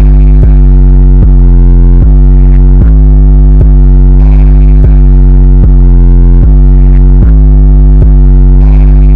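Loud, distorted electronic music dominated by a deep bass, a new heavy bass note struck about every 0.8 s, pushed right up to full level: a bass-boosted track for car speakers.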